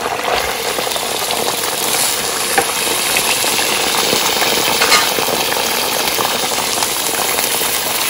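Raw mutton pieces sizzling steadily in hot oil and ginger-garlic paste in a nonstick wok as they go in and are stirred with a silicone ladle, with a few light knocks.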